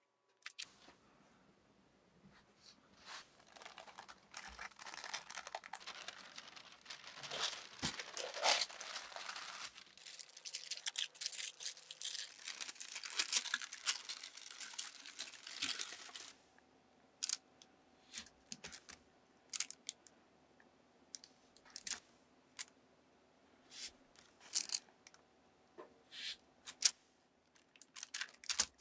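Baking parchment crinkling and rustling as it is handled and peeled off a sheet of rolled-out tart dough, a dense crackling that stops about two-thirds of the way through. Then scattered light clicks and taps as a round metal ring cutter is pressed into the dough.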